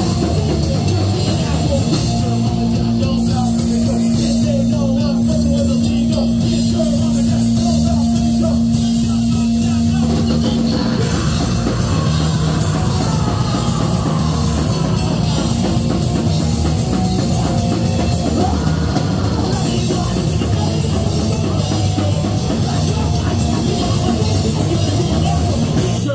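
Live rock band playing loud: electric guitars and a drum kit. A single note is held for several seconds from about two seconds in, then the full band carries on playing.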